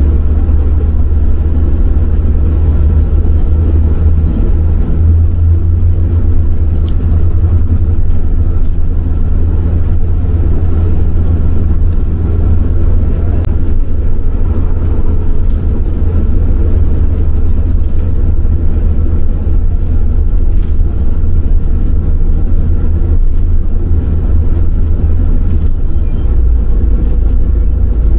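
City bus driving along, heard from inside: a steady deep engine drone with road and tyre noise, the low rumble growing heavier near the end.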